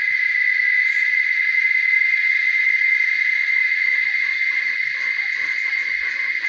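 Steady, unbroken high-pitched drone of insects. Fainter, lower scattered sounds join about four seconds in.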